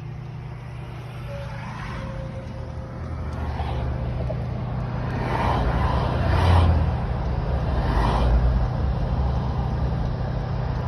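Car engine and road noise heard from inside a car, with a steady low hum. It grows louder and swells a few times in the second half, as with traffic going by.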